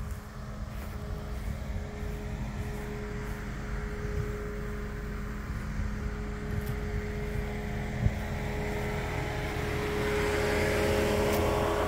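A steady motor hum over a low rumble, getting louder near the end, with a single knock about two-thirds of the way through.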